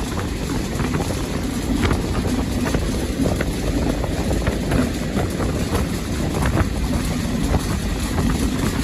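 Freight train rolling along: a steady low rumble with scattered clanks and rattles.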